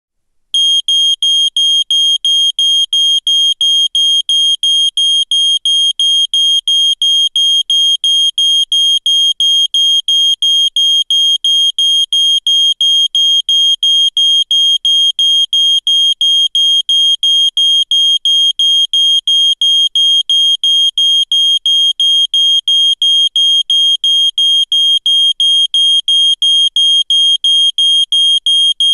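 Smoke alarm beeping: a loud, high-pitched electronic beep repeated in a fast, even rhythm without pause, starting about half a second in.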